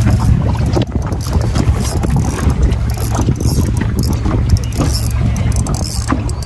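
Wind buffeting the microphone aboard a small boat: a steady, loud low rumble with a noisy hiss above it and a few light knocks.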